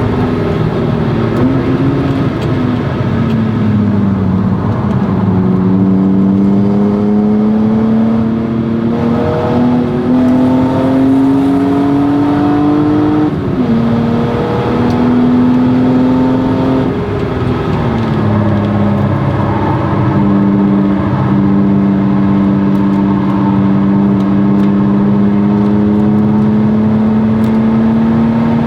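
1997 BMW E36 M3's 3.2-litre straight-six, through a Stromung cat-back exhaust, under hard driving on track. The engine pitch climbs and falls as the car accelerates and slows. It drops sharply at upshifts about halfway through and again a few seconds later, then climbs slowly in a long pull.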